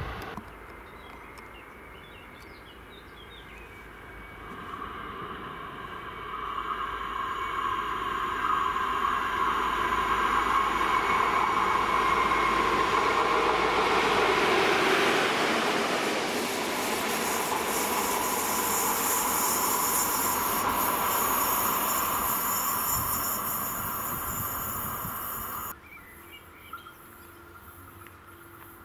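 Two coupled DB V100 diesel-hydraulic locomotives passing on the line, their engines and wheels growing louder as they approach and then easing off as they go by, with a steady whine at the loudest part. The sound cuts off abruptly near the end.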